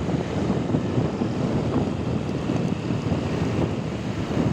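Wind rushing steadily over the microphone of a motorcycle riding through traffic, with road noise underneath.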